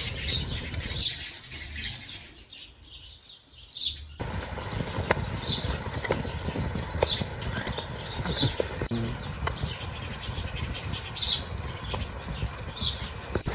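A small knife scraping and paring the skin off a raw carrot in short strokes, roughly one a second, over a low steady rumble. There is a quieter pause about two seconds in.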